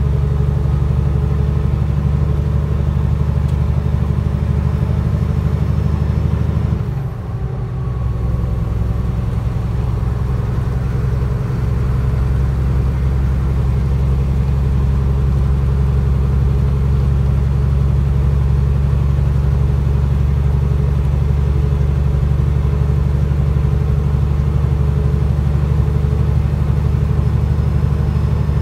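Truck's diesel engine droning steadily in the cab while driving on the highway, heavy in the low end. It briefly dips about seven seconds in, then carries on.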